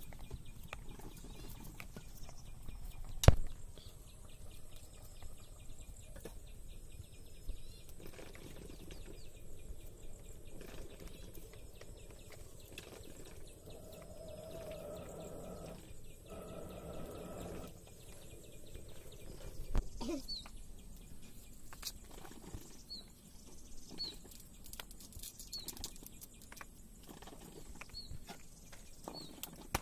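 A knife paring and scraping the skin off wild jungle-potato tubers: a run of small scrapes and clicks, with a sharp knock about three seconds in and another about two-thirds of the way through. Short high bird chirps come in over the last third.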